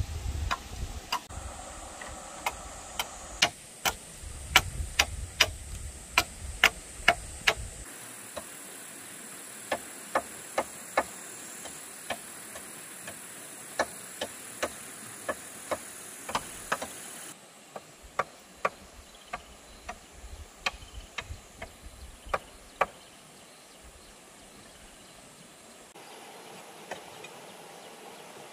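A series of sharp knocks from hand work on the stone and bamboo hut, coming irregularly about one or two a second in runs, over a steady high insect hum.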